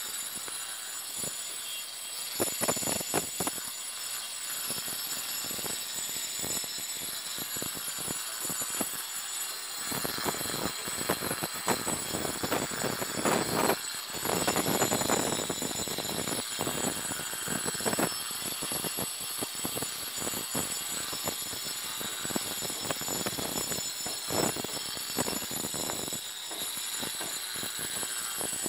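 Handheld angle grinder fitted with a Chatur diamond disc, running steadily and grinding down formwork joint lines on a concrete wall. The motor gives a constant high whine, and the rasp of the disc on concrete swells and fades as it is pressed to the surface and eased off, heaviest through the middle.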